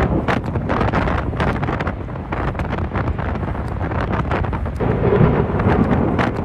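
Strong storm wind buffeting the microphone: a loud, continuous rumbling rush broken by many short crackling gusts.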